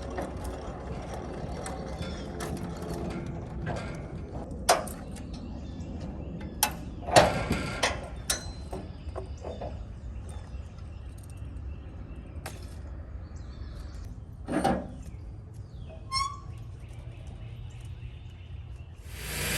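Wood-Mizer LT15 sawmill engine idling low, with scattered metallic clanks, knocks and ratcheting clicks of handling gear between cuts. A bird chirps once near the end.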